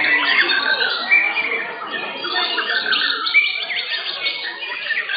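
Several white-rumped shamas singing at once: a dense, unbroken overlap of whistled phrases, quick up-and-down glides and chattering notes.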